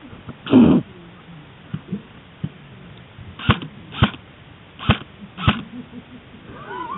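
Four sharp shots from an airsoft gun fired one at a time, a little over half a second apart, after one loud short noise near the start. A brief pitched, wavering sound follows near the end.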